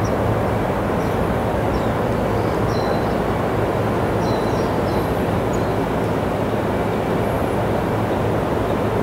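Bank of rooftop air-conditioning outdoor units running steadily: a constant mechanical drone with a low hum underneath. Its low-frequency noise is the complaint, which the neighbour suspects is made worse by resonance in the units' aluminium enclosure.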